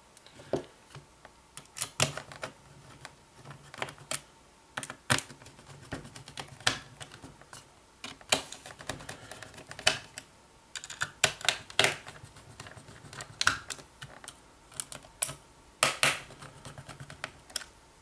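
Hands handling a 2.5-inch SSD in an open laptop's drive bay and the plastic chassis around it: irregular sharp clicks and taps, some loud, several quick ones in a row.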